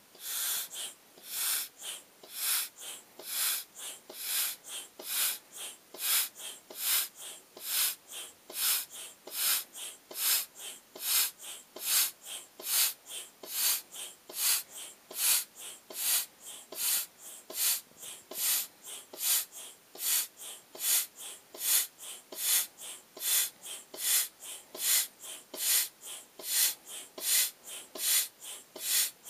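A foot pump blows air through its hose into a vinyl beach ball in a steady rhythm of hissing puffs, a little over one stroke a second, with a smaller puff between each main one.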